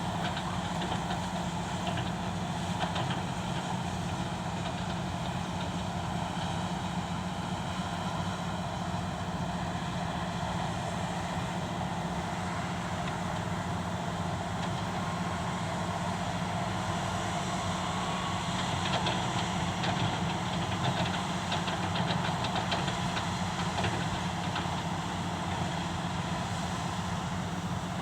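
Excavator's diesel engine running steadily, with a few light clanks, growing a little louder about nineteen seconds in.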